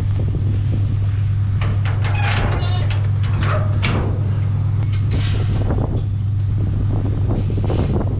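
A vehicle engine running with a steady low hum, with brief knocks and rattles over it.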